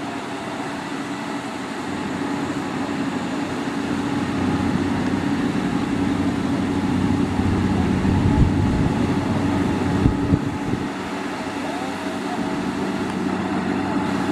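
Heavy construction-machine engine running steadily, with a few knocks about eight and ten seconds in.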